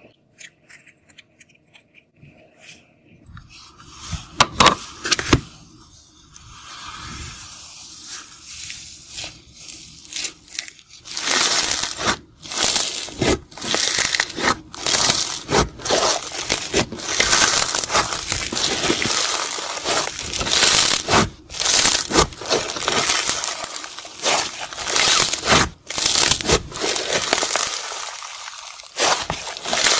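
Floam (slime packed with small polystyrene foam beads) being pressed and kneaded by hand: a crackling, crunching, popping of the beads. It is sparse and quiet for the first few seconds, then turns into a dense, steady crackle from about a third of the way in.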